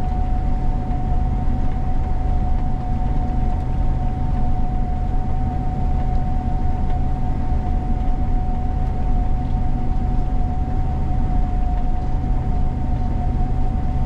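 Gleaner combine running steadily while harvesting, heard from inside the cab: a continuous low engine rumble with a constant high whine.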